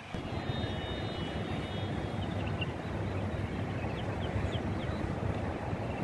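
Outdoor city ambience: a steady low rumble of wind and distant traffic, with a few faint high chirps in the second half.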